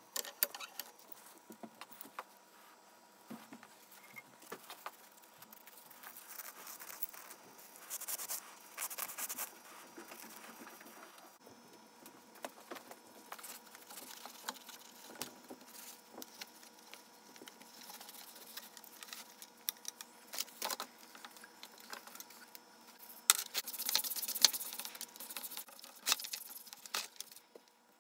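Hand work on small metal parts: scattered clicks, clinks and light rattles, with two short bursts of scraping, one about a third of the way in and a louder one near the end.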